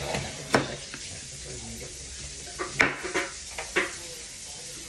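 Kitchen clatter: a handful of sharp knocks and clinks of a knife, dishes and utensils, bunched near the start and again around three seconds in, over a low steady hum.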